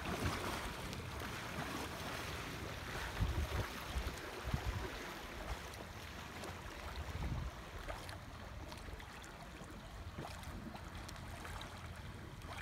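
Wind gusting across the microphone over a steady wash of rippling water, with heavier gusts a few seconds in.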